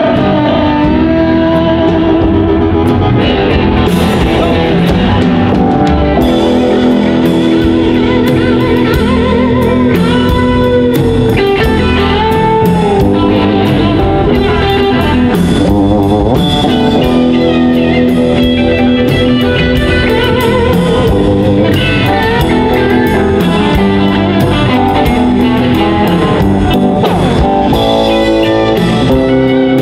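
Live blues-rock band playing an instrumental passage: electric guitars over upright bass and drums, with harmonica blown into a hand-held mic.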